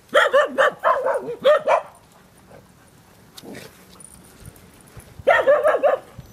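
A dog barking in a quick run of high-pitched barks, about seven in under two seconds, then a second run of barks near the end.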